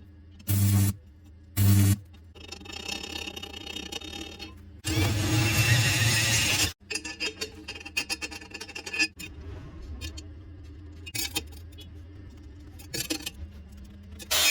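Metalworking tool noise in short loud bursts, two brief ones in the first two seconds and a longer one lasting nearly two seconds about five seconds in, with scattered clicks and scraping between.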